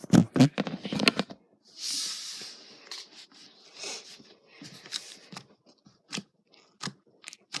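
Slime being squished and pressed by hand: a quick run of wet clicks and pops in the first second or so, a short hiss about two seconds in, then scattered single clicks.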